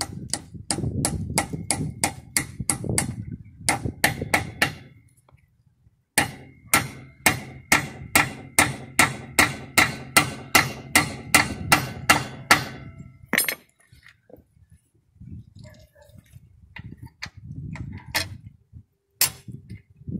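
Club hammer banging an 18 mm 12-point steel socket onto a seized locking wheel nut, to force it over the nut in a tight fit. The strikes come as sharp, ringing metal blows about two to three a second, in two runs separated by a short pause, and stop about thirteen seconds in, leaving a few single clicks near the end.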